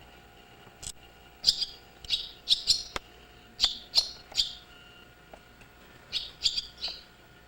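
Swallows chirping: short, bright, high calls in four quick groups of two to four, with pauses between.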